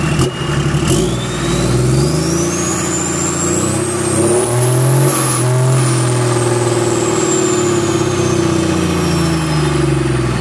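BMW M57D30 3.0-litre straight-six turbo-diesel running in an engine stand and revved once: it climbs slowly to a peak about five seconds in and settles back toward idle near the end. A high turbo whistle rises and falls with the revs.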